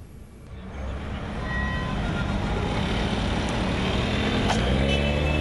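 Town street traffic: car and truck engines running and passing, with general street noise, fading in over the first second. There is a brief sharp click about four and a half seconds in.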